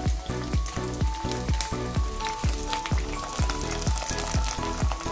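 Buffalo-wing sauce with ketchup sizzling and crackling in a frying pan, under background music with a steady beat.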